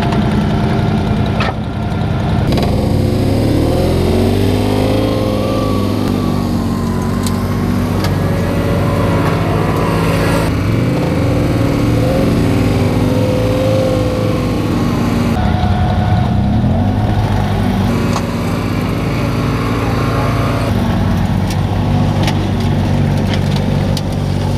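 ATV engine running under heavy load as it drags a weight-transfer pulling sled, its pitch climbing and sagging with the revs. The sound changes abruptly several times.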